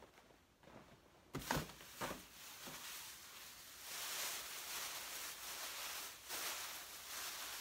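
A few knocks and bumps about a second and a half in, then steady rustling and crinkling of a white plastic packing bag as it is pulled out of a cardboard box and bunched up by hand.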